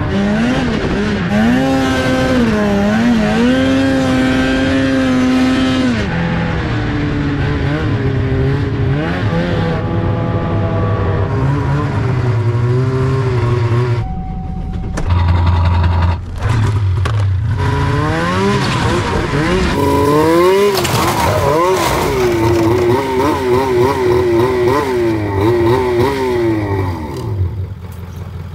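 2003 Polaris RMK 700 snowmobile's two-stroke engine running under way, its pitch rising and falling with the throttle. About halfway through the sound breaks off for a few seconds of lower, steadier engine noise, then rising and falling engine sound picks up again.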